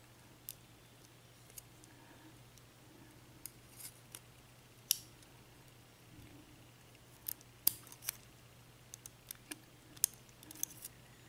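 Irregular small metallic clicks and taps as tools work at the pins and parts inside a disassembled Abus 83/50 padlock cylinder. The clicks come every second or two at first, then bunch together in the second half.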